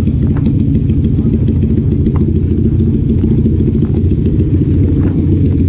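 Motorcycle engine idling close by: a steady, loud low rumble with no revving.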